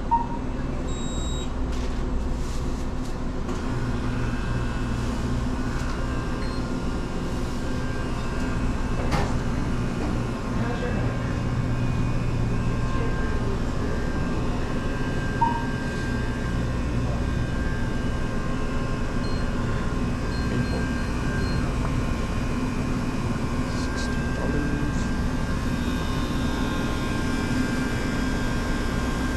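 Steady low mechanical hum with background noise, broken by two short high beeps, one at the start and one about halfway through.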